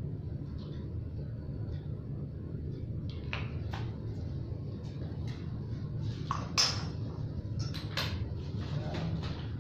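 Bicycle packaging and parts being handled: a string of short rustles, clicks and knocks of cardboard, plastic bags and small hard parts, starting about three seconds in, with one sharper knock near the middle, over a steady low hum.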